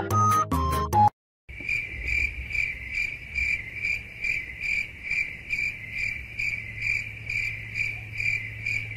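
A few chiming notes end about a second in; after a short silence a cricket starts chirping, a high steady trill pulsing about three times a second.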